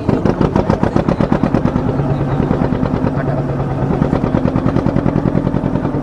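Motor boat's engine running steadily with a rapid, even chugging pulse.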